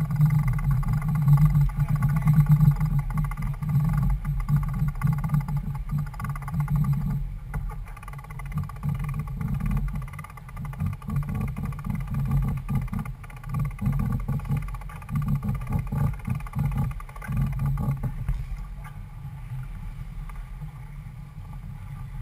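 Wind buffeting the microphone aboard a sailboat under sail, with water rushing along the hull. It is a gusting low rumble that eases in the last few seconds.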